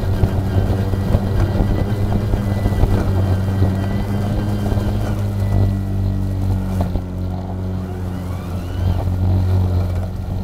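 EGO Power+ LM2135SP 56 V battery self-propelled lawn mower running under load, its motor and spinning blade giving a steady hum as it cuts through tall grass. The sound is choppier for the first half, then smoother and slightly quieter from about six seconds in.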